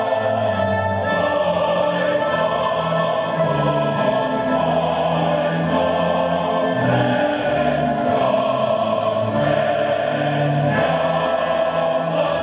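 A choir singing a slow, solemn piece with orchestral accompaniment, steady and loud, with no speech over it.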